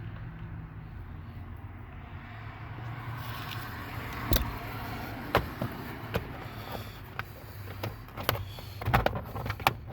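Scattered sharp clicks and knocks of a socket wrench and tools on bolts and plastic trim under a car's dashboard, starting a few seconds in, over a steady low hum.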